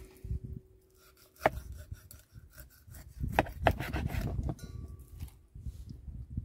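A knife sawing through a lenok's scaly skin and backbone on a wooden cutting board: uneven rasping strokes broken by a few sharp clicks, one about one and a half seconds in and two close together around three and a half seconds.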